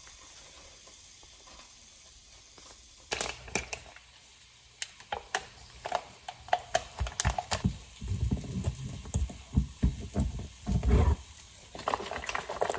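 Irregular clicks, taps and light knocks with some rustling, as of things being handled, starting about three seconds in after a near-quiet start.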